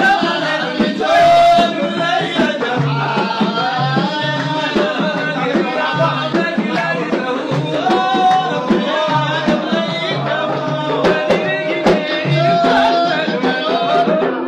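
Sudanese madih, a Sufi praise song, sung by a man's voice with drums beating a steady rhythm under it. A brief loud, bright sound stands out about a second in.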